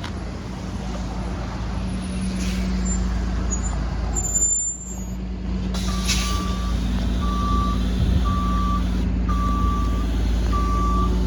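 Subway train standing in the station with its equipment humming steadily. About six seconds in there is a short air hiss, followed by a repeated single-tone beep sounding roughly once a second.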